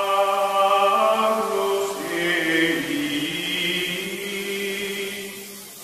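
Outro music: chant-like choral voices holding long sustained notes. The notes change about two seconds in, and the music grows softer toward the end.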